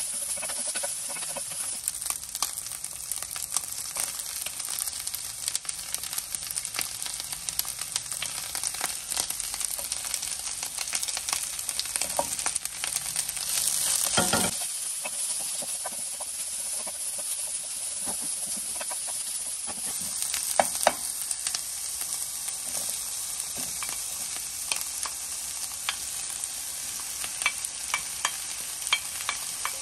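Vegetables sizzling in hot oil in a nonstick frying pan, stirred with a wooden spatula that clicks and scrapes against the pan. About fourteen seconds in there is a brief louder rush as a new batch of sliced vegetables goes into the pan.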